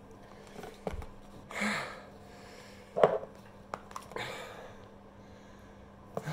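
Heavy, airy exhales from a man whose mouth is burning from hot sauce, with clicks and a sharper knock about three seconds in as a glass sauce bottle is handled and set into its cardboard box. A faint steady hum sits underneath.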